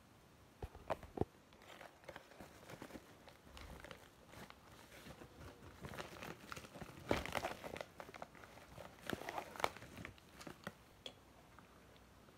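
Brown paper bag crinkling and rustling as hands rummage inside it and pull out a boxed set of colouring pencils: irregular faint crackles, with a few louder crinkles past the middle.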